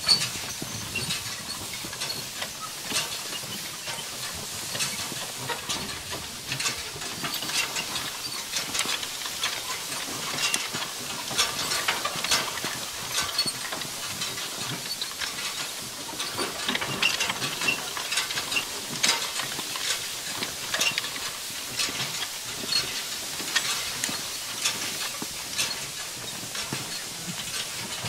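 A horse-drawn New Holland side-delivery hay rake working through cut hay: a steady swishing hiss with a constant clatter of clicks and rattles from the turning tine reel and the metal frame.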